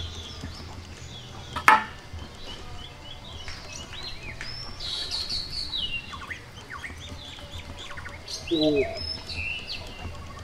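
Small birds chirping and calling again and again in short high-pitched notes. One sharp knock about two seconds in, while a knife is being worked into a jackfruit.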